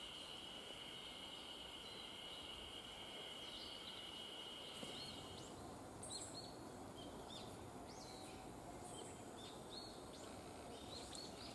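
Faint outdoor ambience by a stream: an insect's steady high trill stops about halfway, then a series of short, quick bird chirps repeats to the end over a soft hiss.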